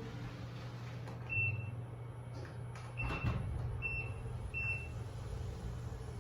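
Hitachi NEW PREED elevator car running with a steady low hum, with four short high beeps of the same pitch from the in-car button confirmation tone, the first about a second in and the rest between three and five seconds, and a light knock near the middle.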